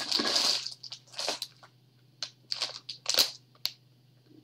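Clear plastic packaging crinkling and crackling as it is handled, in several short bursts, with a sharp click near the end.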